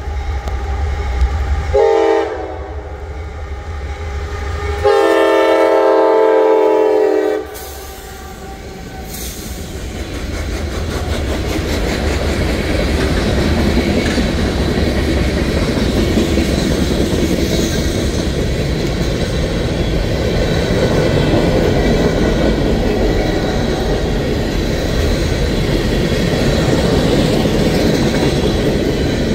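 Freight train's diesel locomotive sounds its horn, a short blast about two seconds in and a long one of about two and a half seconds starting around five seconds. Then the freight cars roll past close by with a steady rumble and clickety-clack of wheels on the rails, growing louder.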